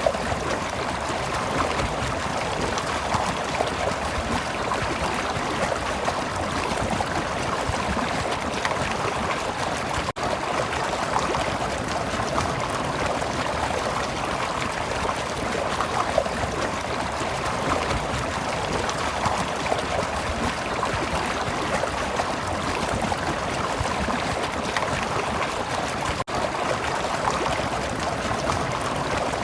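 Stream water flowing and babbling steadily. The sound drops out for an instant twice, about ten seconds in and near the end.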